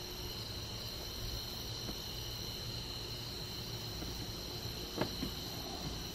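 Night insect chorus: a steady, high-pitched trilling with no breaks, and one faint click about five seconds in.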